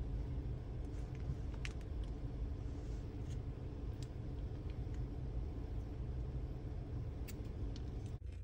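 Steady low hum inside a car cabin, with a few faint clicks.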